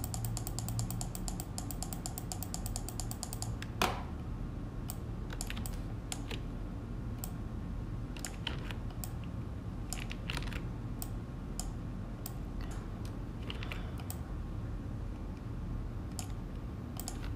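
Computer mouse and keyboard clicks during pen-tool work: a fast run of clicking for the first three or so seconds, then single clicks every second or so, over a steady low hum.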